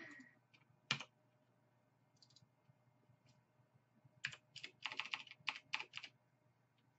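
Computer keyboard keys pressed: a single click about a second in, then a quick run of about half a dozen keystrokes in the second half, including Tab and Backspace struck three times.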